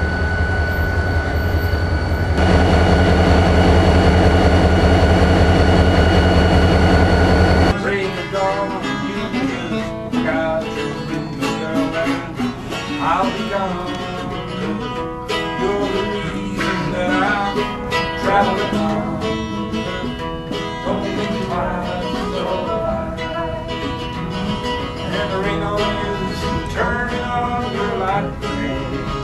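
A Ferromex diesel locomotive's engine running with a steady drone and low rumble, growing louder about two seconds in. It cuts off abruptly after about eight seconds. Acoustic guitars then play a country-style tune.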